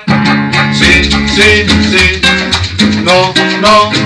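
Upbeat guaracha dance music with shaken maracas and plucked strings, a bass line coming in about a second in. A voice calls out "sí" in a call-and-response.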